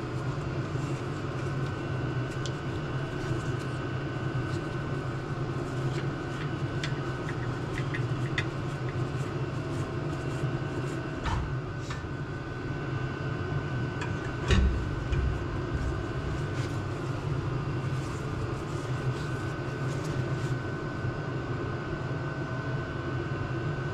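Steady mechanical hum of the shop, with scattered light metallic clicks and two knocks about 11 and 14 seconds in, from tool work forcing the rear brake caliper pistons back into their bores.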